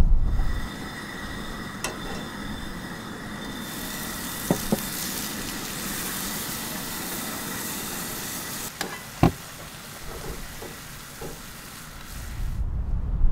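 Food sizzling in a frying pan on a Camp Chef Everest two-burner propane camp stove: a steady hiss that grows into a full sizzle a few seconds in, with a few sharp clicks and taps of a spatula against the pan. The sizzle cuts off suddenly near the end.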